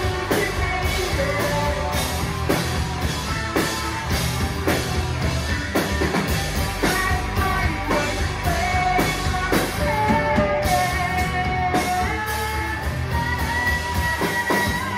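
Live rock band playing loudly through amplifiers: electric guitars, bass and a full drum kit keeping a steady beat, with a voice singing over them.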